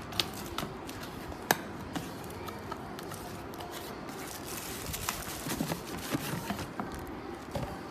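Irregular sharp clicks and light knocks over a steady low background, one loud click about a second and a half in and a busier run of clicks and knocks in the second half.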